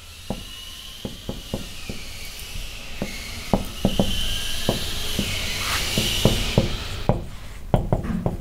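Marker pen writing on a whiteboard: a hissing rub that grows louder through the middle of the stretch, with many irregular short taps.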